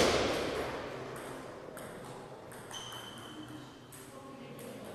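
Table tennis rally ending: a loud sharp hit at the very start rings out in the sports hall's echo for about a second, followed by a few light clicks of the celluloid ball. A short high squeak comes about three seconds in.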